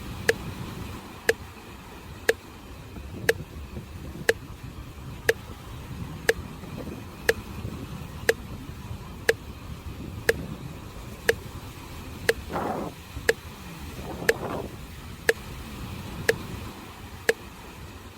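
Sharp pitched ticks, exactly one a second, like a metronome, over a low steady rush of sea waves and wind; two short swells of surf come just past the middle.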